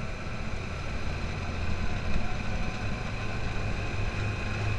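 Off-road buggy's engine running steadily as it drives along a dirt track: a low, steady hum with road noise, growing a little louder after about three seconds.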